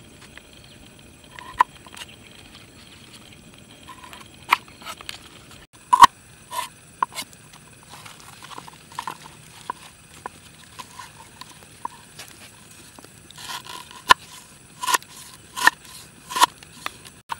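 Knife chopping lemongrass stalks on a round wooden chopping board: irregular sharp knocks of the blade striking the wood, some with a short woody ring, coming faster near the end.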